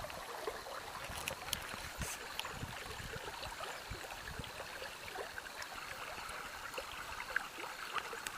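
Small seasonal creek running after heavy rain, its water babbling and trickling steadily over the ground, with a few faint clicks about a second or two in.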